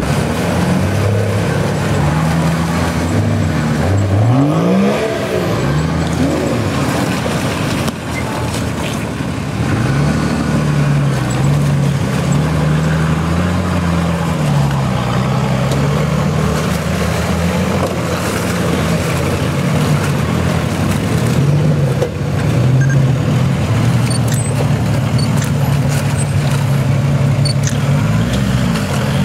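Off-road 4x4 SUV engines labouring through deep mud, their revs rising and falling with the throttle, with a sharp burst of revs about four seconds in.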